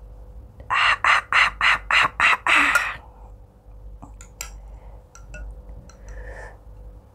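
A rapid string of seven short, loud bursts, about three a second, whose source can't be made out. After them, about four seconds in, come a few light clinks of a metal spoon against a glass soup bowl as soup is ladled out.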